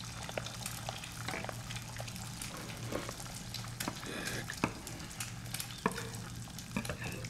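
Kitchen work sounds: scattered light knife taps and clicks on a wooden cutting board over a faint sizzle of food frying, with a steady low hum underneath.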